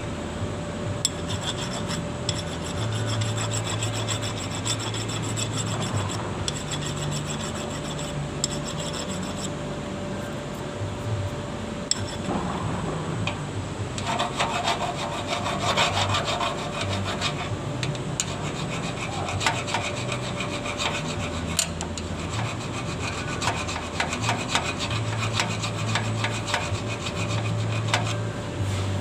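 Rough scraping and rubbing on machine parts during welding-machine maintenance, with many sharp clicks, over a steady electrical hum.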